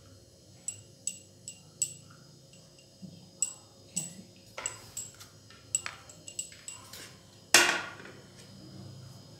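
Irregular light clicks and taps of crockery being handled over a serving plate, with one louder bump near the end.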